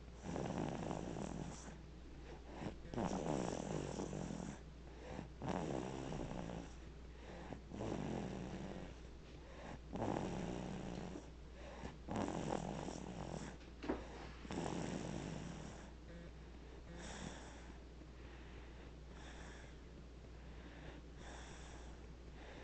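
A baby snoring in his sleep: rough snoring breaths about every two seconds, growing fainter in the last third.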